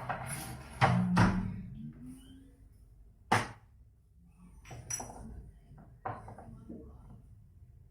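Spice jars being handled and dried with paper towel: irregular sharp knocks and clinks as jars are picked up and set down, with paper rustling in the first second or so.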